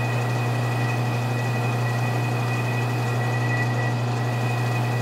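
Metal lathe running with a steady low hum and a steady high whine while a cutting tool takes a slow finishing cut at a rifle barrel's muzzle. The tool is fed out very slowly to leave a smooth finish.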